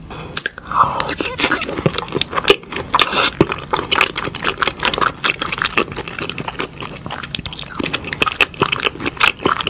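Close-miked eating of raw salmon sashimi dipped in sauce: a dense run of wet clicking and smacking chewing sounds, starting about half a second in.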